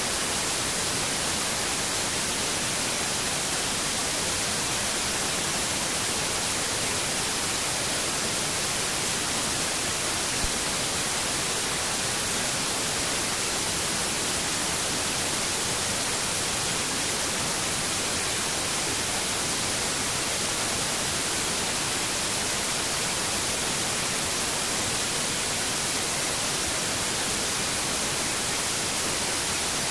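Steady, unchanging static-like hiss, stronger in the high range than the low, with no tones or rhythm; a single faint click about ten seconds in.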